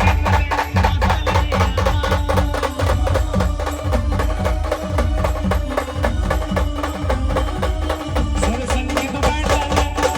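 A Maharashtrian wedding brass band playing an upbeat dance tune: sustained melody lines over fast, dense drumming.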